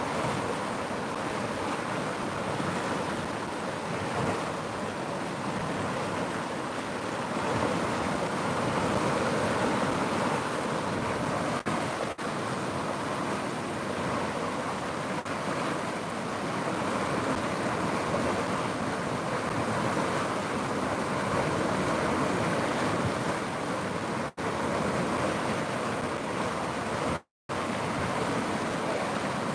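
River water rushing steadily, broken by a brief silent gap near the end.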